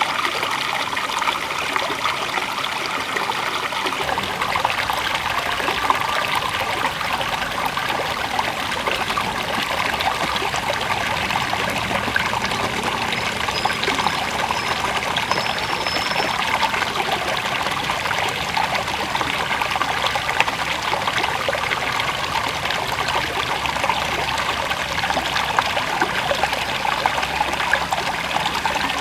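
River water flowing and trickling in a steady, even babble.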